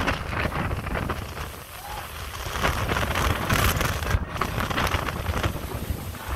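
Gusty tropical-storm wind buffeting the phone's microphone, a rumbling rush that eases briefly about two seconds in, then gusts up again.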